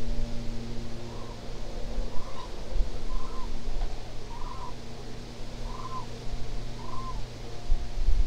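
Eurasian cranes giving short calls that rise and fall in pitch, about one a second, over a steady low rumble.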